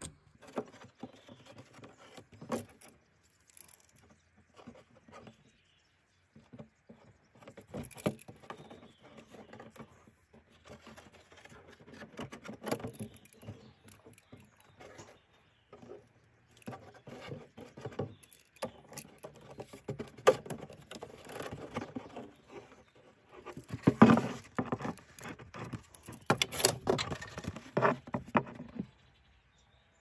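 Thin-walled 6-litre plastic bottle handled on a wooden table while it is measured with a tape measure and marked with a felt-tip pen: irregular crinkles, taps and knocks, coming in bunches with short pauses. The loudest handling comes about three quarters of the way through.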